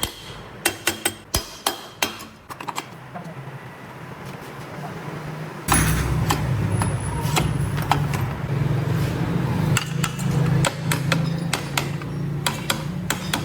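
A run of sharp metal taps and knocks, then about five and a half seconds in a Honda CD 70's small single-cylinder four-stroke engine starts and keeps running steadily.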